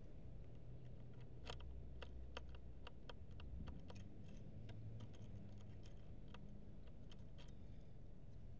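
A run of small, irregular clicks and taps as fingers handle a bike-mounted Contour action camera, over a low, steady hum.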